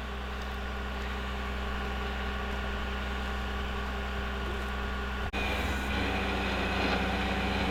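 Vehicle engine idling steadily: an even, unchanging low hum. It breaks off for an instant just over five seconds in and then runs on slightly louder.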